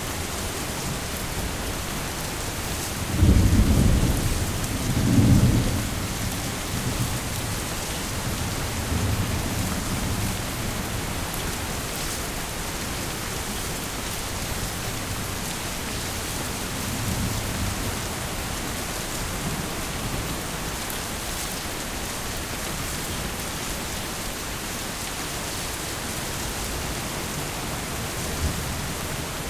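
Heavy rain falling in a steady hiss, with thunder rumbling loudest about three and five seconds in and fainter rolls of thunder later on.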